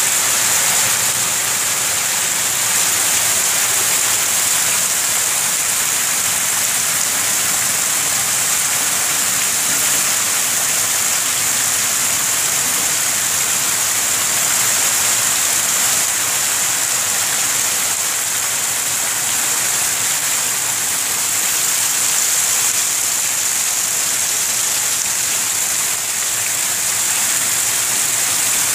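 Heavy rain falling steadily onto standing floodwater and wet ground, an even, unbroken hiss.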